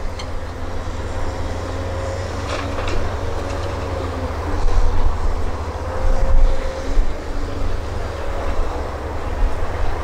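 Long-reach hydraulic excavator working: steady diesel engine rumble with a faint hydraulic whine as it swings its bucket over a dump truck and empties soil into the bed. A few sharp metallic clanks come in about two and a half seconds in, and the sound swells around the middle and again a little later.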